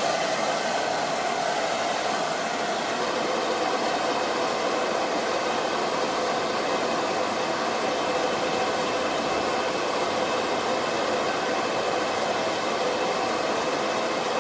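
Hair dryer running steadily: an even rush of blown air with a faint motor whine.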